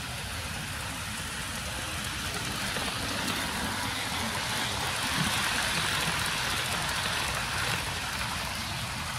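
HO scale Athearn EMD GP38-2 model diesel locomotive pulling a train of freight cars along the track: a steady running noise of its motor and the wheels on the rails. The noise grows louder as the train passes close by around the middle, then eases.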